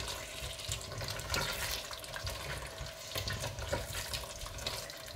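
Red silicone spatula stirring thick curry in a stainless steel pot: wet, squelchy stirring with irregular light scrapes and clicks against the pot.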